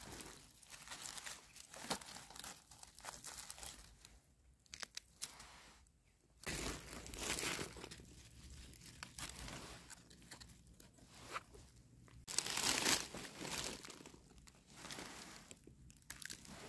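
Dry fallen leaves crackling and rustling in irregular bursts as a hand digs a wild mushroom out of the leaf litter and soil.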